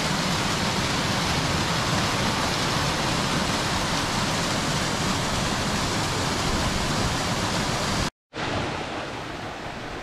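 Mountain stream rushing and splashing over rocks in small cascades, a steady wash of water noise. It cuts out for a moment just after eight seconds and comes back a little quieter.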